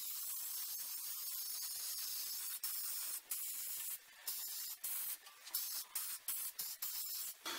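Aerosol spray can of insulating protective lacquer hissing as it sprays a coat: one steady spray for about two and a half seconds, then shorter sprays with brief pauses, turning into quick short bursts near the end.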